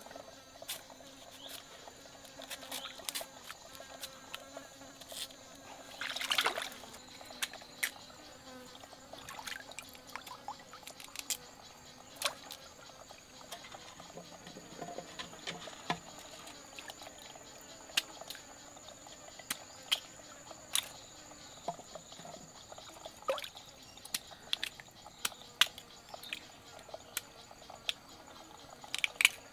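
Forest insects droning in a steady high tone, with short splashes and knocks of hands working in shallow stream water scattered throughout, the loudest about six seconds in.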